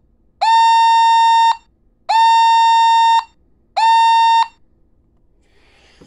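Radio Shack 12-245 pocket weather radio's alert siren: a loud, high, buzzy tone sounding in on-off pulses about a second long, each sliding up briefly at its start. Three pulses, the last one shorter, then it stops.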